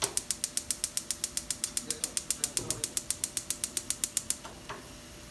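Gas stove burner's electric spark igniter clicking rapidly, about ten clicks a second, for about four seconds, then stopping, with one more click shortly after.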